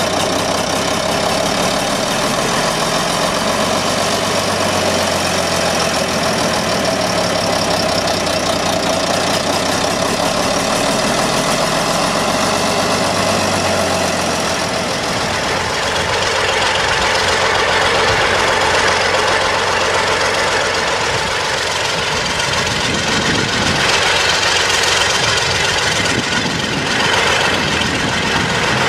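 International Harvester BTD20 crawler tractor's Rolls-Royce diesel engine running steadily at idle, then about halfway through the sound grows louder and rougher as the crawler works under load pulling discs.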